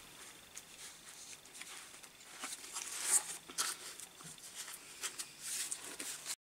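Faint rustling and light clicks of small objects being handled on a workbench; no motor is running. The sound cuts off abruptly to silence near the end.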